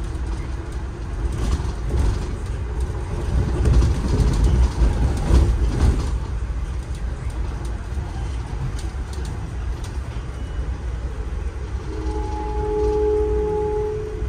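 Steady low rumble of an Amtrak passenger car rolling at speed, heard from inside the coach, with scattered clicks from the wheels over the track. About two seconds before the end, a steady held chord of a few tones sounds for about two seconds.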